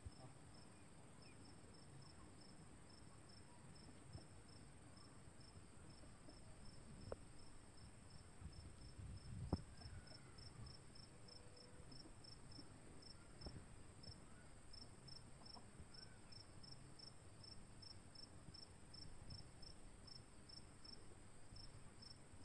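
Faint, regular chirping of a cricket, about two to three chirps a second, over a steady high hiss, with a few soft knocks near the middle.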